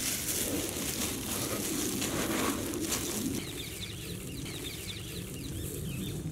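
Crunching rustle of crushed cornflake and breadcrumb coating being pressed onto chicken drumsticks by gloved hands. About halfway through, small birds start chirping rapidly in the background.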